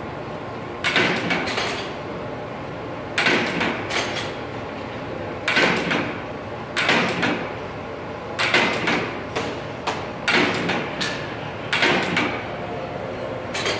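Electric TV lift in a road case lowering, its motor running with a steady hum. Short scraping rushes come and go about once a second over it.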